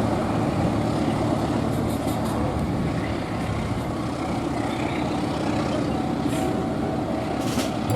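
A passing train running by, a steady rumbling noise without breaks.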